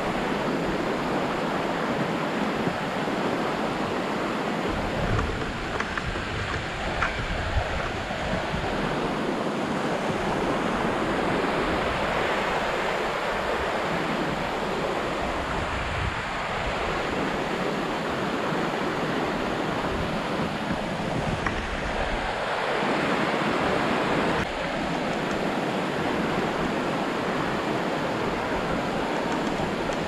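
Mountain stream rushing steadily over rocks, an even hiss, with a few light knocks of footsteps on the wooden planks of a suspension footbridge.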